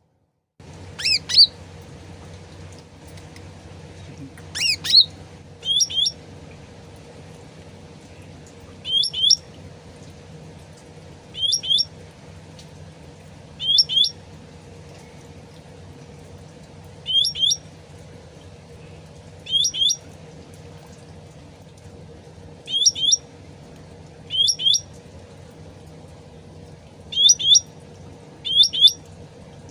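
A cucak ranting (cucak rante) songbird calling: short, sharp chirps, each a quick pair of sweeping notes, repeated every two to three seconds over a steady low background hum.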